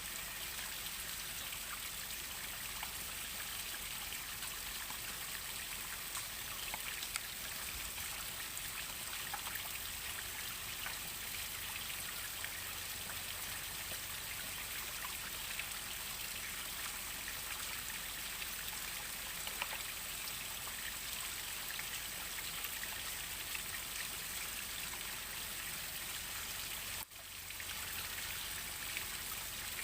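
Waterfall water falling and splashing steadily: an even hiss with scattered small drip-like ticks. It dips away for a moment near the end and comes straight back.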